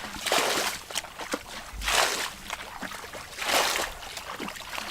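Water splashing and sloshing in repeated swells, about one every second and a half, with a few small clicks between.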